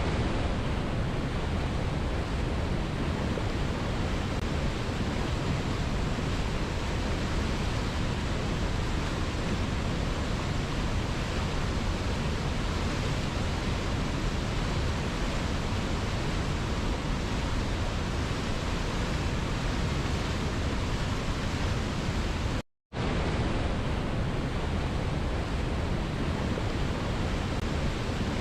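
Steady rushing of river water, an even roar spread from deep to high tones. It cuts out to silence for an instant about three-quarters of the way through, then resumes unchanged.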